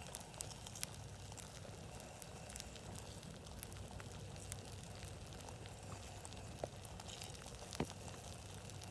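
Wood campfire crackling: scattered sharp pops and snaps at irregular intervals over a low steady background, with the loudest pop near the end.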